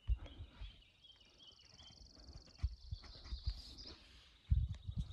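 Footsteps of a hiker climbing a forest trail under a heavy pack: irregular low thumps and scuffs, with a cluster of heavier thumps near the end. A high trill runs in the background for a few seconds in the middle.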